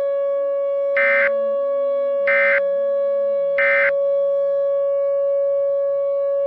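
Three short screeching digital data bursts, about a second apart, typical of an Emergency Alert System end-of-message code. They sound over a steady droning tone and slow, low background notes.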